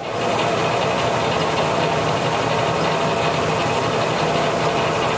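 Grob 4V-24 vertical bandsaw switched on, its motor and blade coming up to speed at the very start and then running steadily with a mix of hum and whine, blade running free with no cut.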